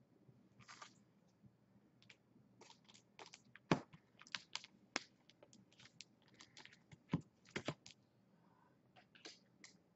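Typing on a computer keyboard: faint, irregular key clicks in short runs, a few of them sharper and louder.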